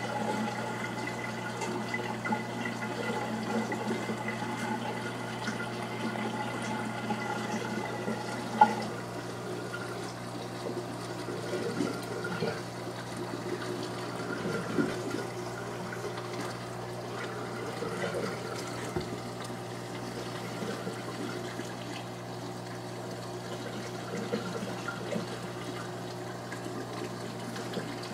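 Steady running and trickling water with a low steady hum from the reef aquarium's pumps and water flow. A few light knocks stand out, the sharpest about nine seconds in.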